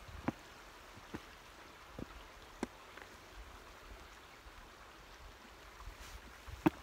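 Footsteps of a person walking up a path: four short sharp steps under a second apart, a pause, then one more step near the end, over a faint steady wind hiss.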